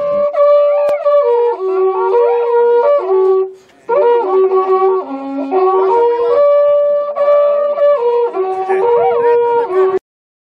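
Two wakrapuku, Andean spiral horn trumpets, playing a slow melody of long held notes that step up and down, at times sounding together. There is a short break a few seconds in, and the sound cuts off suddenly near the end.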